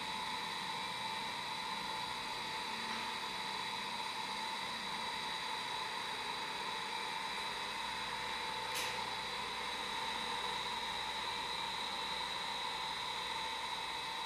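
Steady hiss of background machine noise with two thin, steady whining tones, and one light tick about nine seconds in.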